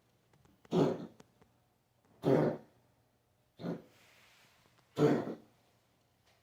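A pet coughing in a series of four separate coughs, about one every second and a half.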